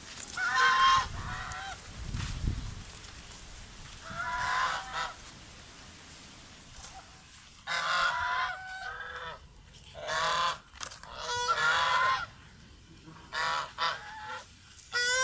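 A flock of white domestic geese honking in irregular bouts of several calls each, with short pauses between bouts. The calls come more often in the second half.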